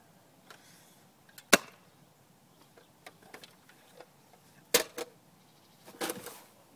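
Sharp snaps of a spring-powered Nerf foam-dart blaster firing: one loud shot about a second and a half in, another near five seconds, and a ragged cluster of clicks and knocks around six seconds.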